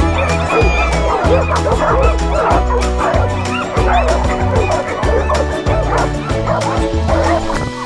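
Many dogs barking and yipping over and over in quick succession, over background music with a steady bass beat.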